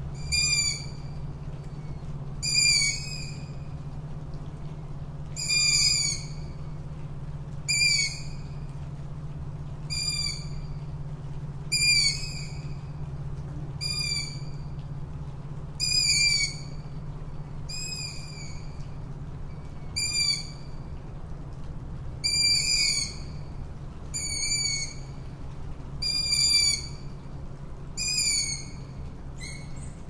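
Tawny owl calling: a short, sharp, high-pitched call repeated about every two seconds, over a steady low hum.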